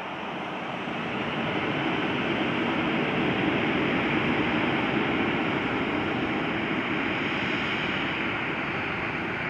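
Boeing 737-700's CFM56-7B turbofan engines running as the airliner taxis onto the runway. The jet noise grows louder over the first couple of seconds, then holds steady.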